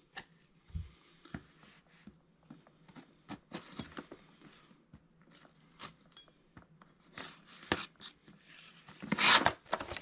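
Pocket knife slitting the tape on a cardboard box, a run of short scrapes and clicks, then a louder cardboard rasp as the box lid is pulled open near the end.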